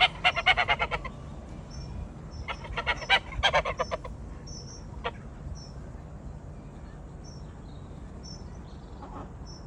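Waterfowl honking in quick runs of repeated calls: one bout at the start, another a couple of seconds later, then a single honk, with faint high chirps of a small bird in between.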